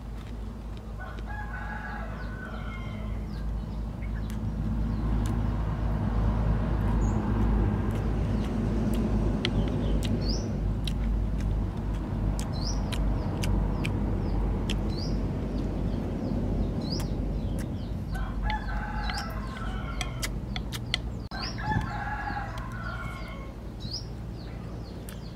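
Roosters crowing, once near the start and a couple of times near the end, over a loud, steady low rumble of noise that swells in the middle. Short, rising high chirps from a small bird repeat about every two seconds.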